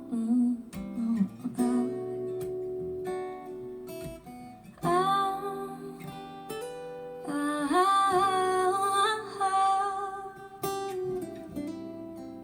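Acoustic pop song playing over hi-fi loudspeakers: plucked and strummed acoustic guitar, with wordless vocal lines gliding in twice.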